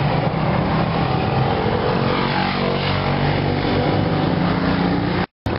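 Street traffic noise with a motor vehicle engine running close by, a steady low hum under general road noise. The sound cuts out abruptly for a moment near the end.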